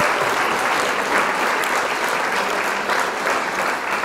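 Crowd applauding: dense, steady clapping.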